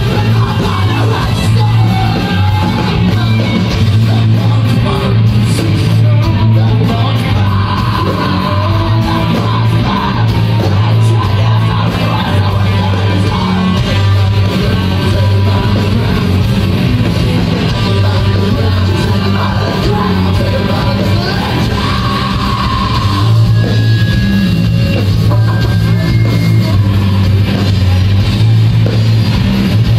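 A rock band playing live, heard from the crowd: electric guitars, bass and drums with a singer. The full band comes back in heavier about three-quarters of the way through.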